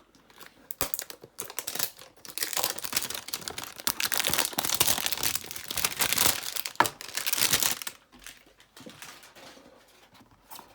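A cardboard hanger box of trading cards being torn open and its plastic-wrapped pack handled: dense crinkling and tearing, heaviest in the middle with a sharp snap near the end of it, then dying down to light rustling.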